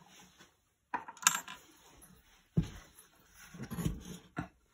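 Small metal parts clinking, sharpest about a second in, then a dull knock and scraping as the metal generator housing is picked up and shifted on the work surface.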